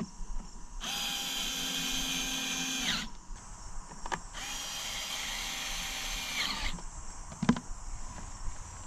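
Electric drill driving small screws back into a trolling motor housing: two runs of about two seconds each, the motor's whine dropping in pitch as each stops. A sharp knock follows near the end.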